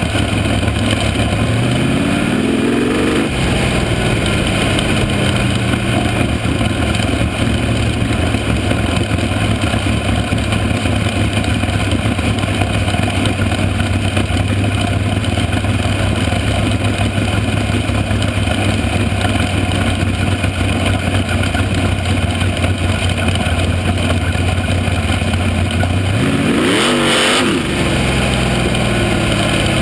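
Dirt-track race car engine running at speed, heard close up from an onboard camera, a loud steady drone. Its pitch climbs briefly a couple of seconds in, and rises and falls quickly near the end.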